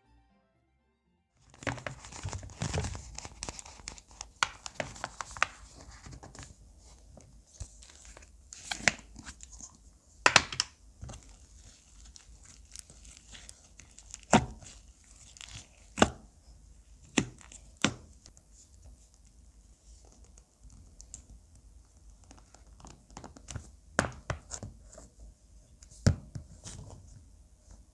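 Slime being handled and stretched by hand, making a crackly tearing texture with scattered sharp clicking pops. It starts about a second and a half in.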